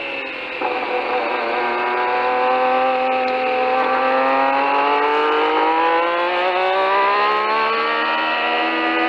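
Renault RE40 Formula One car's 1.5-litre turbocharged V6 heard from the onboard camera. The engine is back on the throttle about half a second in and pulls with a slowly rising note, which drops near the end as it shifts up.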